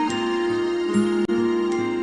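Background music without singing: held notes over a steady low pulse.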